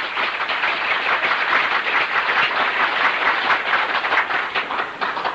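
Audience applause: many people clapping, swelling in and dying away near the end.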